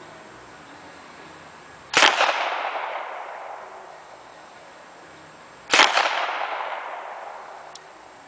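Two single gunshots from an Uzi, about four seconds apart, each followed by a long echo fading over about two seconds.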